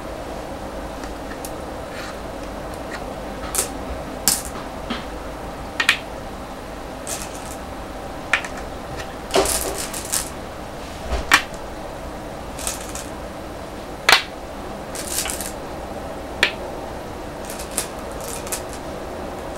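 Go stones clicking: a hand rummaging in a bowl of stones and setting stones down on a wooden go board, a scattered series of sharp clicks over a steady background hum.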